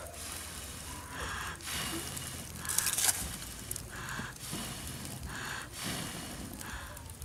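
Someone blowing into a smoky wood fire under a cooking pot to get it to catch: a series of breathy puffs about a second apart, with faint crackling from the sticks.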